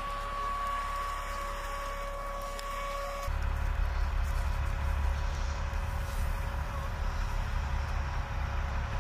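Low rumble of a military armoured vehicle's engine running, with a steady whine over it. About three seconds in, the higher whine drops out and the rumble gets louder.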